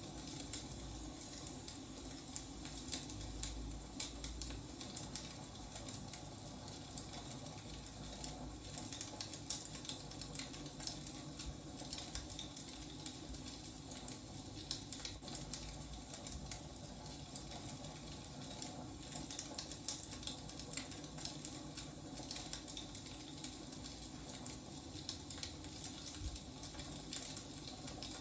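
Wood fire burning, with a steady hiss and many small, irregular crackles and pops from the logs.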